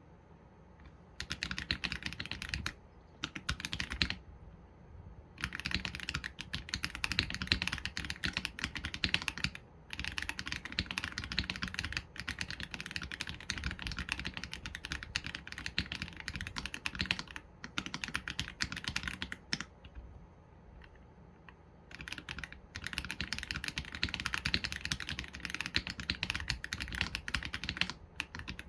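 Typing on an AULA F87 Pro mechanical keyboard with Leobog Graywood V3 linear switches and PBT keycaps: fast runs of clacky keystrokes, starting about a second in, with short pauses about four seconds in and again near twenty seconds.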